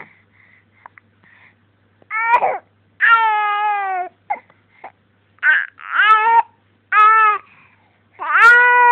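A baby with hiccups fussing and crying in about six high-pitched wails. The longest and loudest wail comes near the end.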